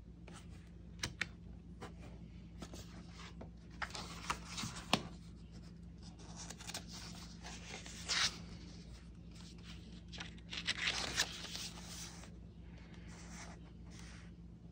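Paper handling: an oracle card being put away and a small paperback guidebook opened and a page turned, soft paper rustles with a few light taps, the longest rustle a little past the middle. A steady low hum lies underneath.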